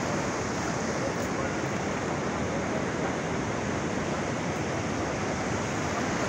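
Floodwater rushing past, a steady, even noise of fast-flowing water that holds at the same level throughout.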